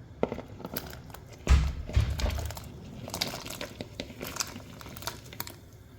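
Dry crinkling and rustling of something being crumpled by hand, with scattered sharp clicks and two dull thumps about a second and a half and two seconds in.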